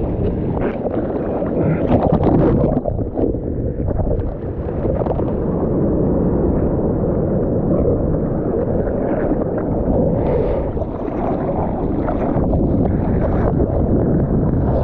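Strong wind buffeting the microphone over sloshing sea water, a dense low rumble that swells briefly about two seconds in.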